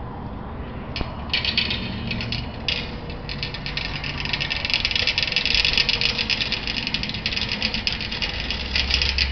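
Shopping cart being pushed, its wheels and wire basket rattling continuously, starting about a second in and growing louder after about three seconds.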